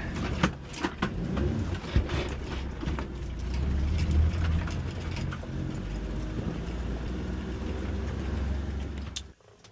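Mitsubishi Minicab kei van driving slowly over rough pasture: a steady low engine and drivetrain rumble, with scattered knocks and rattles from the body over bumps. It cuts off suddenly near the end.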